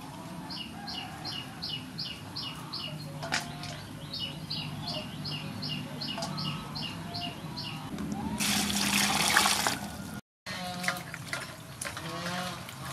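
A bird calling a fast series of repeated two-part chirps, about three a second, for the first seven seconds or so. About eight seconds in, a loud rush of water is poured for about two seconds. After a brief dropout, animal calls rise and fall.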